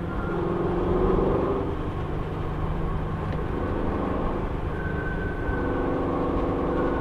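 The 2014 Camaro 1LE's V8 heard from inside the cabin at track speed, its pitch climbing under throttle about a second in, easing lower, then climbing again from about five seconds in, with a thin high whine riding over it at times.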